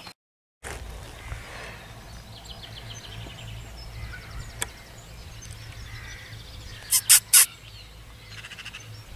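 Birds singing in the background over a low steady rumble, with three short loud sounds in quick succession about seven seconds in.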